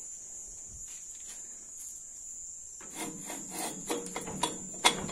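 Metal scraping and clicking as a hand grips and works a homemade mower driveshaft at its splined shaft and universal joint, starting about three seconds in, with two sharp clicks near the end. A cricket chirrs as one steady high tone underneath.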